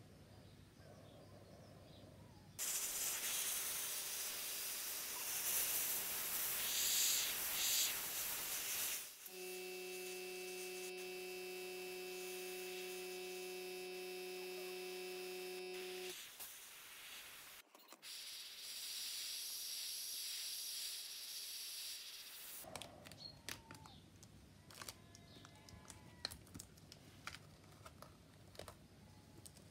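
An airbrush sprays paint with a loud, even hiss in two long bursts. Between them, for several seconds, there is a steady tone of several notes. After the second burst there are light clicks and taps of the model being handled.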